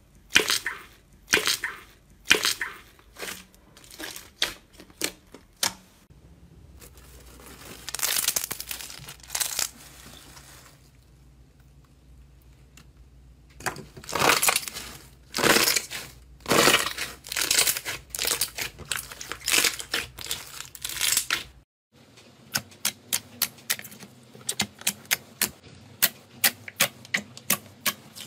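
Slime being squeezed and pressed by hand, making wet squelches and crackling pops of trapped air in a run of separate bursts. Near the end come quick, sharp little pops as the fingers press into a bubbly slime.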